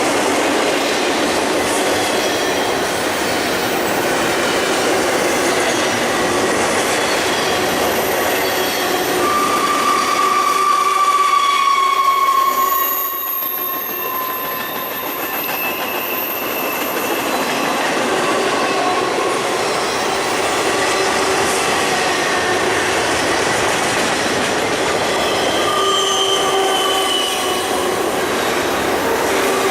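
Intermodal freight cars rolling past with a steady rumble and clatter of wheels on rail. High metallic wheel squeals come and go, the loudest about a third of the way in and again near the end.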